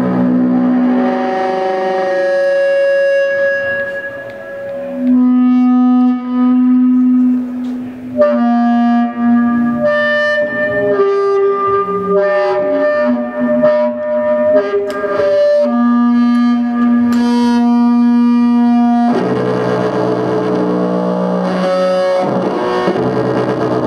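Bowed electric string instrument played through a chain of effects pedals: long held notes that step from pitch to pitch, giving way about three-quarters of the way through to a denser, noisier texture.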